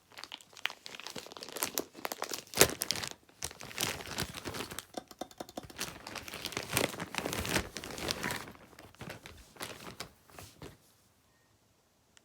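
Packaging being crinkled, crumpled and torn by hand while an elevator button is taken out of its box: a dense run of irregular crackles and rustles with one sharper, louder snap a few seconds in, dying away near the end.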